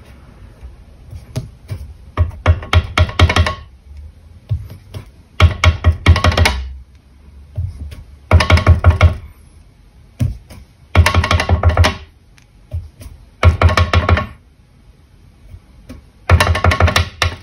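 Clear acrylic stamp block with a cling stamp tapped rapidly on a Stampin' Up! Classic ink pad (Garden Green) to ink it: six bursts of quick knocks, about six a second, each lasting about a second, a few seconds apart.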